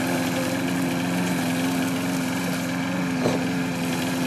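Lawn mower engine running steadily at a constant speed, with a brief knock about three seconds in.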